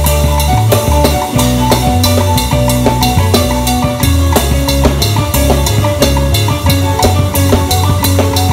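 Live band music with a drum kit played hard to a steady beat, cymbals ringing with the hits, over sustained bass notes and other held instrument notes.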